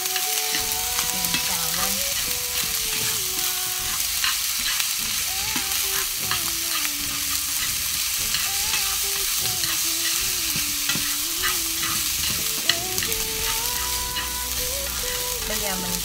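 Fried rice sizzling in oil in a nonstick frying pan while it is stirred and tossed, with small scraping clicks against the pan as oyster sauce is worked through the rice.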